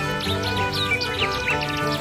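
Background music with steady held notes, overlaid with many quick, high bird-like chirps.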